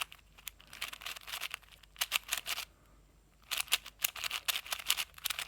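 Magnetic QiYi MS 4x4 speed cube being turned by hand: quick runs of plastic clicking and clacking as the layers snap into place, in about five short bursts with brief pauses between.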